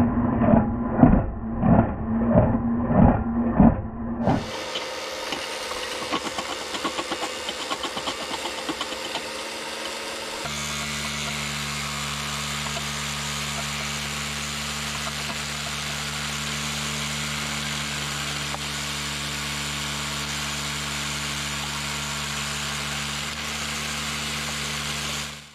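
Small electric drive motors of a scale RC stone crusher and screening plant running. For the first four seconds there is a rhythmic pulsing about twice a second. After that comes a steady motor hum with a fine clatter, and from about ten seconds in a smoother hum of several steady tones.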